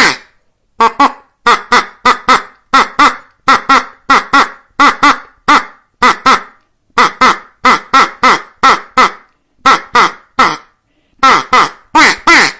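Ducks quacking over and over: short, harsh quacks, often two or three in quick succession, with a brief pause about ten seconds in.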